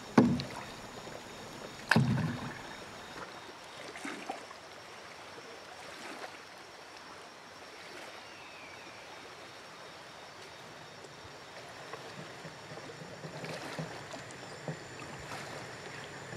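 Paddling a small boat: two sharp knocks in the first two seconds, then quieter splashing of the paddle in the water.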